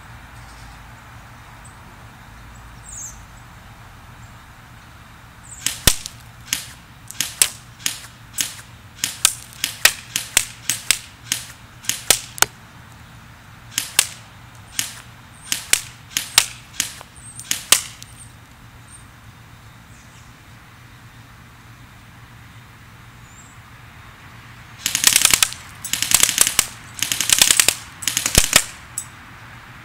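CYMA CM041 electric airsoft MP5 firing at a paper target, with the BBs smacking into it: about two dozen single semi-auto shots at an uneven pace, a pause, then four short full-auto bursts near the end.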